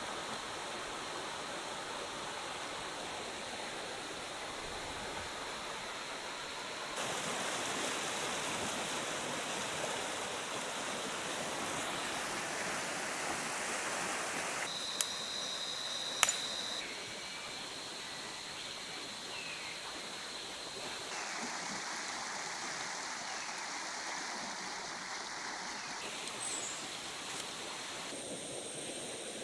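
Rushing water of a shallow rocky jungle stream, a steady wash of noise whose level and tone shift abruptly several times. Two sharp clicks about halfway through.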